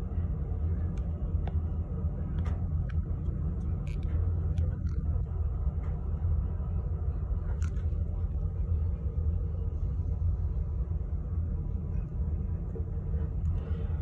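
Steady low rumble of a cruise ship under way at sea, with a few faint clicks.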